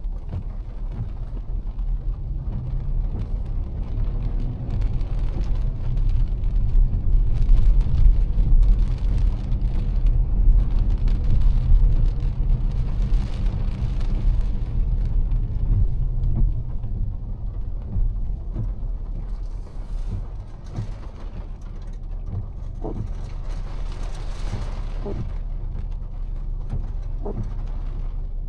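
A car driving in heavy rain, heard from inside: a steady low rumble of the tyres and engine with a hiss of rain and spray, swelling for several seconds in the middle and then easing. A few sharp taps come near the end.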